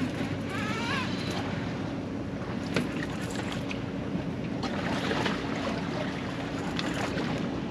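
Boat engine running at a steady low speed, a constant hum, with wind and water noise over it.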